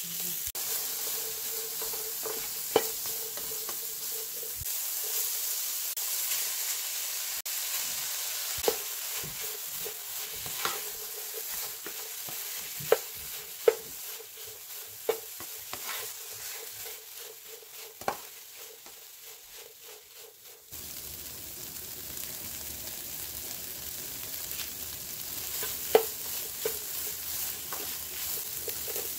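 Minced pork and diced filling sizzling in a hot frying pan while a plastic spatula stirs and scrapes through it, with sharp knocks of the spatula against the pan now and then. The sizzle fades a little, then comes back louder about two-thirds of the way through.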